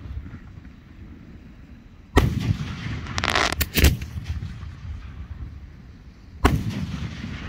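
Aerial fireworks shells booming three times, at about two seconds, just under four seconds and six and a half seconds, each followed by a rumbling echo. A short hiss comes just before the second boom.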